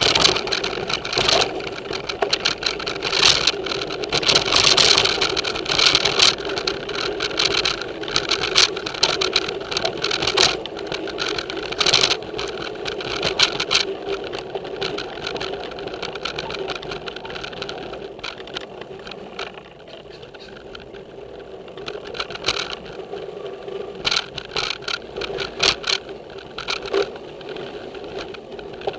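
Giant Trance X0 full-suspension mountain bike ridden along dirt singletrack. Tyre roar on the trail mixes with rapid rattling, clicks and knocks from the bike over bumps and roots. It is busiest in the first half and eases somewhat later on, picked up by the bike-mounted action camera.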